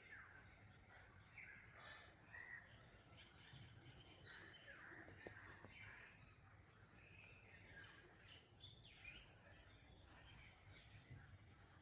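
Faint natural outdoor ambience: scattered short bird chirps over a steady, high-pitched insect drone.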